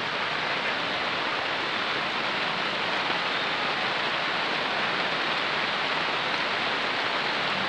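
Heavy cyclone rain falling steadily on the street and roofs, an even hiss with no breaks.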